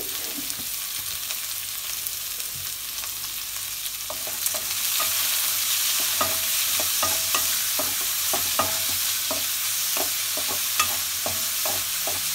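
Sliced onions frying in hot oil in an aluminium kadai, with a steady sizzle. From about four and a half seconds in, a spatula stirs them, scraping and clicking against the pan, and the sizzle gets louder.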